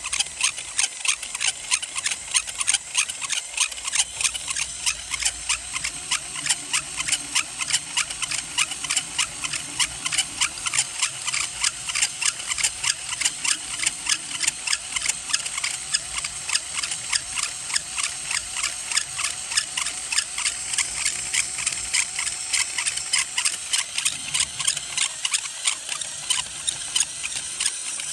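LEGO Technic plastic gears or turntable turning and squeaking, a rapid, even train of high, scratchy squeaks at about four or five a second: plastic rubbing on plastic without lubrication.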